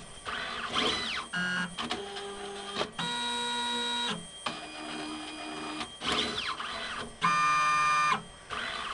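Motors of an automated pipetting robot whining as its syringe arm moves between tubes, in several separate moves. Each move is a steady buzzing tone, and some begin or end with a rising or falling sweep in pitch.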